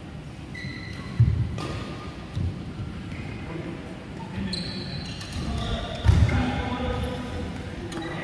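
Badminton footwork on an indoor court mat: low thuds of players' feet landing, two loud ones about a second in and about six seconds in, with short shoe squeaks and faint voices in between.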